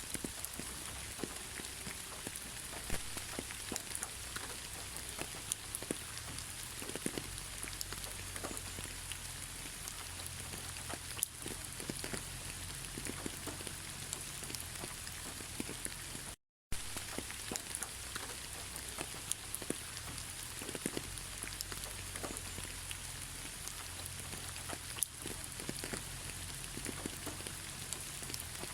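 Steady rain falling, a continuous hiss dotted with the ticks of separate drops. It cuts out completely for a split second about sixteen seconds in.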